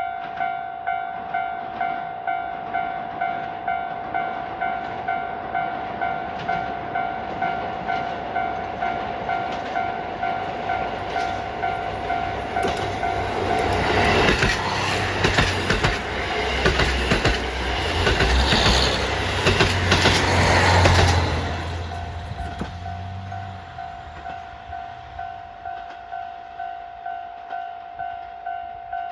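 Railroad crossing alarm bell ringing in steady, regular strikes while a KiHa 183 series diesel limited express passes the crossing. The passing train's low diesel engine rumble and wheel clatter over the rail joints build from about 12 seconds in, drown out the bell, and fade after about 22 seconds, leaving the bell ringing alone again.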